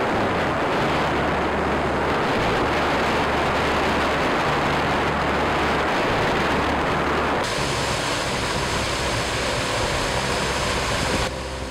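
Loud steady rushing noise of a lake steamship under way, heard from on board, with a low steady hum underneath. The upper part of the rush thins about seven seconds in, and the loud rush cuts off abruptly near the end.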